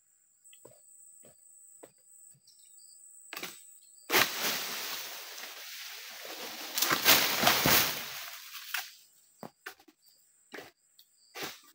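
Oil palm frond being cut with an egrek, a long-poled harvesting sickle: a few light cutting knocks, then a sudden loud rustling crash of about five seconds as the frond comes down through the palm leaves.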